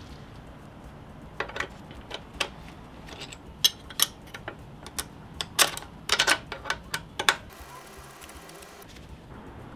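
Sharp metallic clicks and clinks, coming in small clusters, of a hex key working the bolts of a brake caliper guard on a motorcycle's front Brembo caliper.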